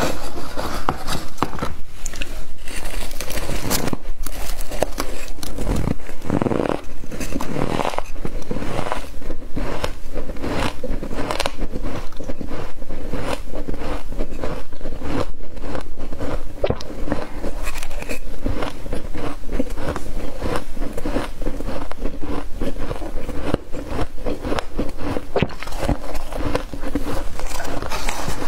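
Freezer frost being scooped with a metal spoon and bitten and chewed close to the microphone: a dense run of crisp, crackling crunches with spoon scrapes through the frost.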